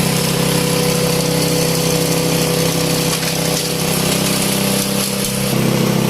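Engine-driven K20 multifunction chopper-grinder running steadily while processing animal manure; its drone weakens for a couple of seconds past the middle and picks up again near the end.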